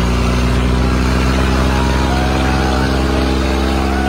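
Tractor diesel engine running at a steady speed.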